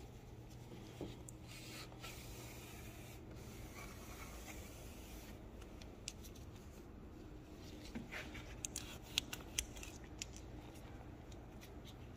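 Faint rubbing of a cleaning tool wiped over surfaces, with a few light sharp clicks and taps about two-thirds of the way through, over a low steady hum.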